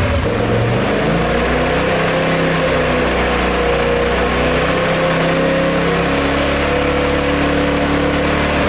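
Polaris RZR Pro XP's twin-cylinder engine idling steadily, freshly started moments before.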